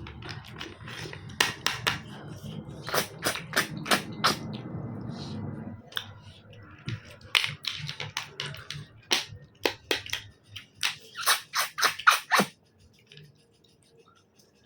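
Close-up eating noises: a run of sharp clicks and wet smacks, mouth and shell sounds from eating snails, dying away near the end.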